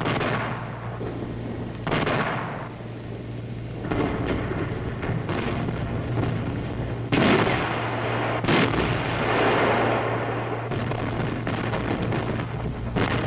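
Booms of naval gunfire and shell bursts on an old newsreel soundtrack, one after another, the sharpest two close together a little past the middle, over a steady low hum from the old film sound.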